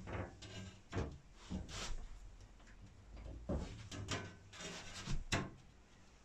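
Cupboard door being handled and shut: a scatter of light knocks and clicks.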